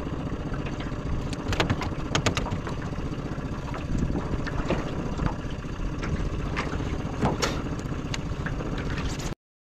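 Steady low rumble of wind and water around a small aluminum skiff at sea, with scattered sharp knocks and clicks. The sound cuts off suddenly near the end.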